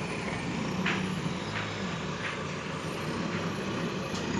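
Heavy vehicle engine running steadily, with a few faint short ticks over it.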